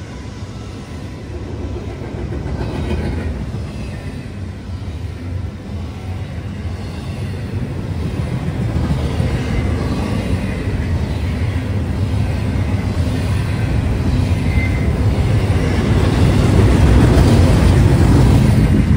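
Double-stack intermodal freight train's container well cars rolling past, a steady low rumble of steel wheels on the rails that grows louder toward the end.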